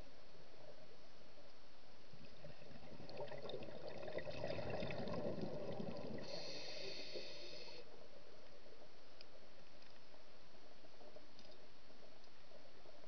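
Underwater ambience heard through a camera's waterproof housing: a steady hiss that swells in the middle into a few seconds of rushing water noise with scattered clicks, followed by a short high whine that stops suddenly.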